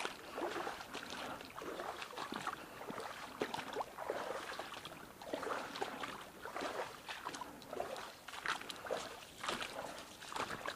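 Footsteps wading through shallow stream water: a run of irregular splashes and sloshes.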